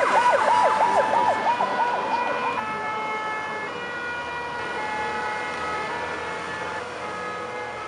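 Emergency-vehicle sirens. A fast yelping siren sweeps up over and over, about three or four times a second, and cuts off about two and a half seconds in. Fainter, steadier siren tones at several pitches carry on after it.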